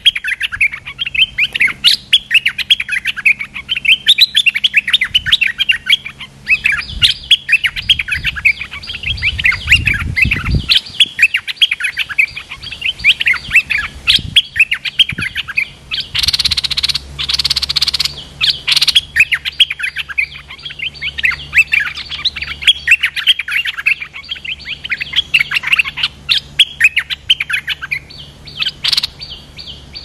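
Stripe-throated bulbuls chattering in rapid runs of short chirps, almost without a break: a caged decoy calling in a wild territorial bird. A rushing hiss lasts about two seconds a little past the middle.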